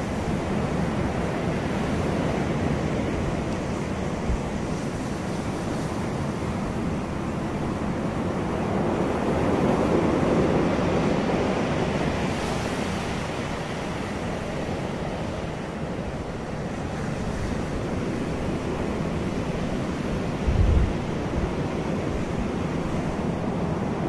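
Ocean surf: waves breaking and washing ashore in a continuous rush that swells about ten seconds in. A brief low thump stands out near the end.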